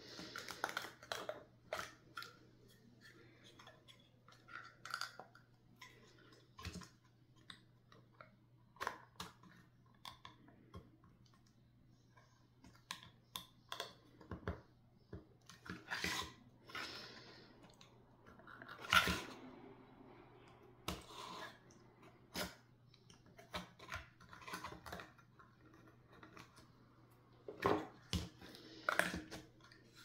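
Quiet, irregular clicks, snips and paper rustles from hands working scrapbook paper and small wooden birdhouse pieces, with a longer rustle about two-thirds of the way through.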